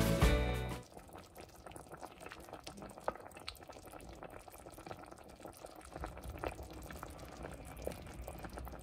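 Ramen broth boiling in a stainless steel pot, a soft, steady crackle of bubbles popping. Background music cuts off within the first second.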